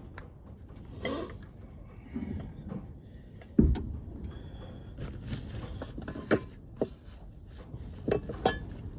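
Handling noises while putting drink and cooking things away: scattered light clicks and knocks, brief rustles, and one heavy thump about three and a half seconds in.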